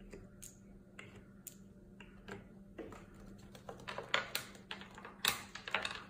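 Light, irregular clicks and taps of small plastic toy pieces against a wooden tabletop and a plastic peg-board toy as they are set out and picked up. The clicks come thicker in the second half.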